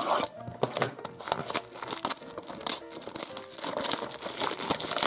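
Clear plastic shrink wrap crinkling and tearing as it is pulled off a small cardboard blind box, in a dense run of crackles.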